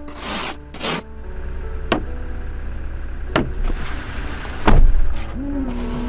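Truck engine running at idle while the windshield wipers sweep across the frosted glass, one stroke about every second and a half, with a louder knock near five seconds in. Soft music plays underneath.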